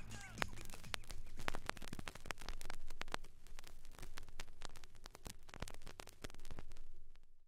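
Vinyl surface noise from a stylus riding a quiet groove on a Technics SL-1210MK2 turntable: steady crackle with many irregular pops and clicks over a faint low rumble. It cuts off suddenly near the end.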